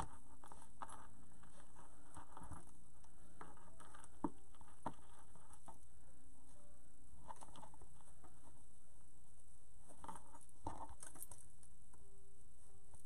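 Fabric strips rustling as they are knotted onto a wire wreath frame, with scattered soft taps and a couple of sharper clicks about four and five seconds in, over a steady faint hiss.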